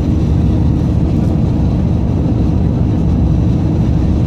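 Steady low rumble inside a moving bus: engine and road noise while driving.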